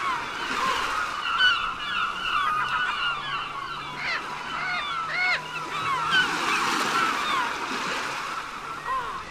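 A flock of birds calling: many overlapping squawks and chirps, some of them short rising-and-falling calls.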